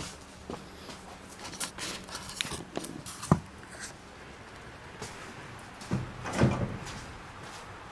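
Clunks and scrapes of a steel pickup box being shifted on a truck frame: scattered knocks, one sharp bang a little past three seconds in, and a heavier scraping clunk about six seconds in.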